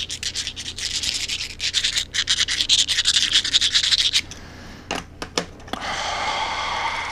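Small handheld mini grinder being twisted, giving a fast run of scratchy ratcheting clicks that stops about four seconds in. Two sharp clicks and a softer scraping noise follow near the end.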